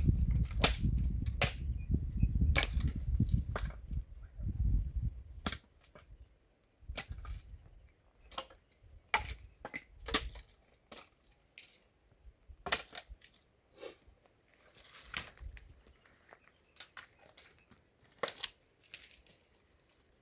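Firewood being broken or chopped: a series of sharp, irregular wooden cracks and knocks, about one a second, over a low rumble for the first five seconds.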